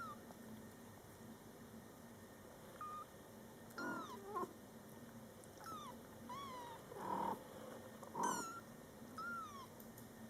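Young Scottish Fold kittens meowing: about eight short, thin, high-pitched mews that fall in pitch, spaced irregularly through the second half. Two louder, fuller calls come around three-quarters of the way through.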